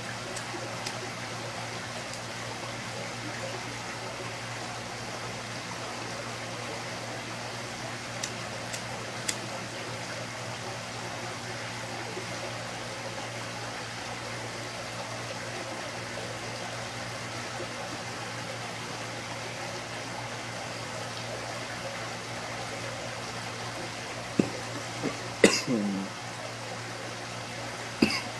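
Steady room hiss and hum with a few faint clicks about eight to nine seconds in; near the end, a person coughs and clears their throat in short bursts while exhaling a hit of heavy smoke from a pipe.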